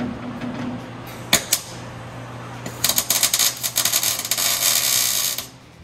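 MIG welder crackling as a steel cross-brace is welded inside a Ford Model A body: two short cracks about a second in, then a steady run of crackle for about two and a half seconds that stops just before the end.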